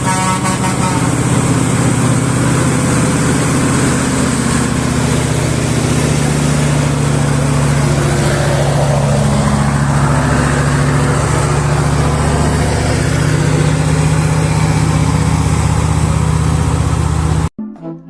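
Built-up Mitsubishi Fuso 8DC8 V8 diesel engine running loudly and steadily, its pitch rising and falling a little. It cuts off abruptly about half a second before the end.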